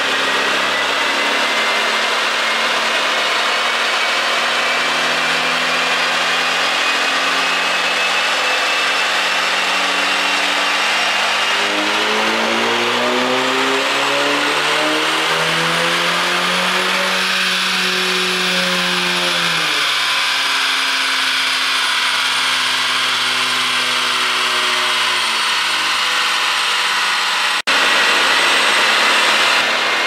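2011 VW Golf 6 GTI's turbocharged 2.0-litre four-cylinder, in stock tune, making a full-throttle pull on a chassis dyno: the engine note climbs steadily, rising faster to a peak about two-thirds through, then falls away as the throttle is released, over a constant loud rushing noise. Near the end it cuts abruptly to another run.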